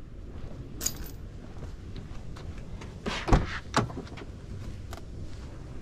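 Driver's door of a 2007 Mercedes-Benz C350 4Matic being opened: a few clicks and a louder clunk about three seconds in, over a steady low rumble.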